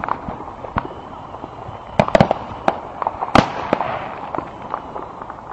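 Fireworks going off: a series of sharp bangs and pops with crackling between them, a quick cluster about two seconds in and the loudest bang about three and a half seconds in.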